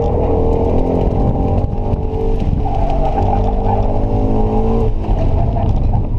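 Subaru BRZ's 2.0-litre flat-four engine heard from inside the cabin, pulling hard on an autocross run: the engine note climbs, dips about a second and a half in, climbs again and drops near the five-second mark as the driver lifts.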